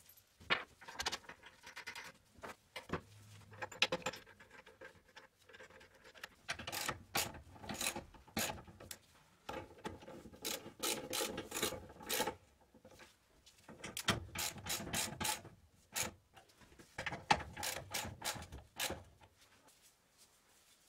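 Socket ratchet wrench clicking in runs of quick clicks as bolts are tightened, between single metallic clinks of parts being fitted.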